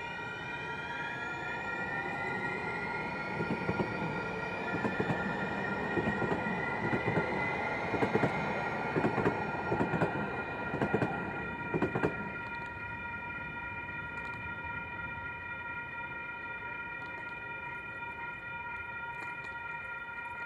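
Electric light-rail trolley pulling away, its motor whine rising in pitch while the wheels clack over rail joints; the clacks stop about twelve seconds in. A steady high-pitched tone sounds underneath throughout.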